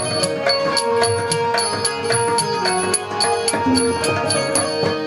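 Instrumental interlude of a Hindu devotional bhajan: a steady held note and tabla drumming under a small metal percussion instrument struck in a steady beat, about four ringing strikes a second.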